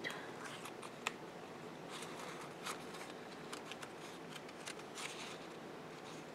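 Faint rustling of sticker paper and a few light clicks as metal tweezers place and press down a small page-flag sticker on a planner page.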